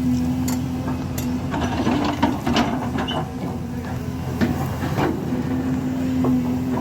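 Heavy construction machinery: an engine running at a steady hum, with irregular metallic clanks and knocks over it.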